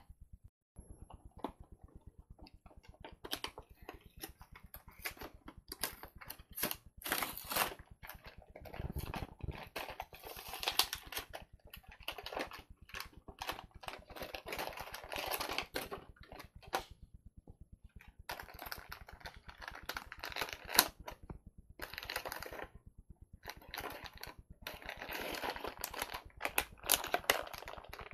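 Toy packaging being handled and opened: irregular clicks and taps with several longer stretches of rustling.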